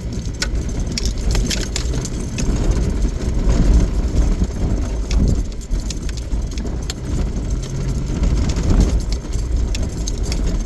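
Cab of a vehicle driving slowly over rough dirt: a steady low engine and tyre rumble with frequent sharp clicks and rattles as the cab jolts.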